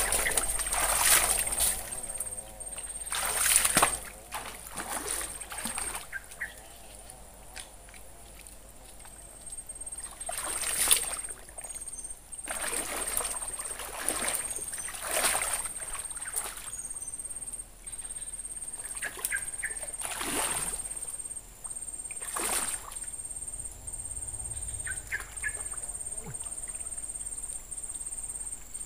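Shallow swamp water splashing and sloshing in a series of short bursts, as an angler wades and casts in it. The bursts are loudest near the start and again about 3.5 and 11 seconds in.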